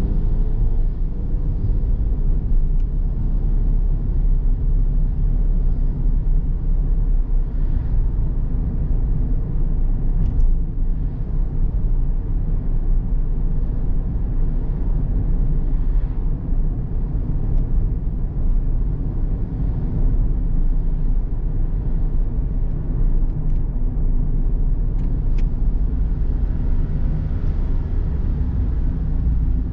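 A car driving along a road: steady low rumble of engine and tyre noise that holds even throughout.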